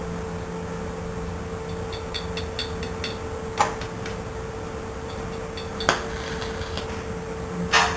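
Stick welder striking short arcs in dabs, like a series of tack welds, at a reduced 17 amps to close a burn-through hole in thin sheet. There are three sharp crackling bursts, the last a little longer, and a few faint ticks, over a steady electrical hum.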